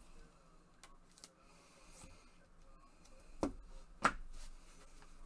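Trading cards in plastic sleeves being handled by gloved hands: faint rustling with a few light clicks and taps, the two loudest about three and a half and four seconds in.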